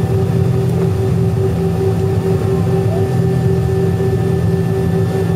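Airliner's engines running with a steady, even drone, heard from inside the passenger cabin as the aircraft rolls along the runway.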